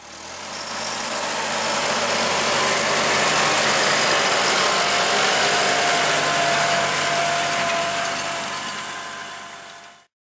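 Fendt 412 Vario tractor's diesel engine running under load while pulling a reversible plough through the soil, with a steady whine over the engine. It fades in over the first couple of seconds and fades out near the end.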